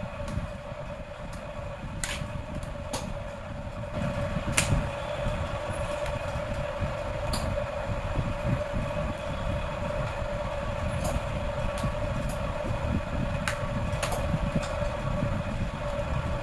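Sharp plastic clicks, seven or so spread irregularly, as the snap-in clips of a laptop's plastic bottom cover are pried loose with a plastic pry tool. Under them runs a steady rumble with a constant hum.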